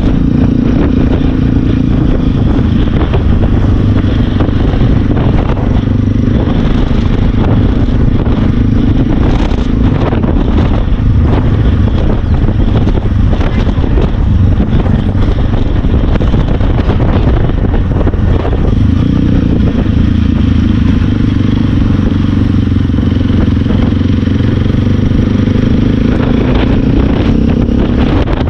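Motorcycle engine running steadily at road speed, with wind noise rushing and buffeting over the microphone.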